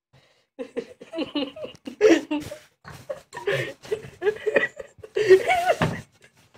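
A person laughing and giggling in a run of short bursts, with a longer, louder laugh about five seconds in.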